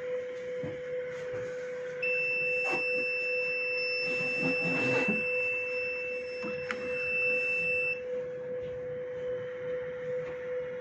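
Blood collection monitor's electronic alarm giving one long, steady high beep for about six seconds, starting about two seconds in: a flow-rate alert as the bag suddenly gains volume. Underneath it a steady low tone runs throughout, with a brief rustle of the bag being handled in the middle.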